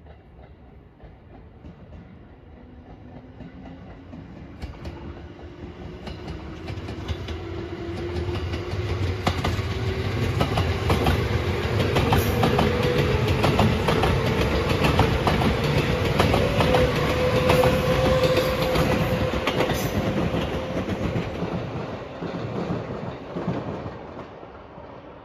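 JR 213 series electric train passing: it draws near, wheels clacking over the rail joints, with a motor whine that rises in pitch. It is loudest about halfway through, then fades as it moves off.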